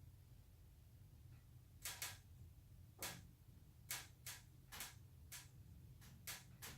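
Faint, irregular clicks and taps, about nine over five seconds, from plastic hose and fittings being handled and fitted, over a low steady hum.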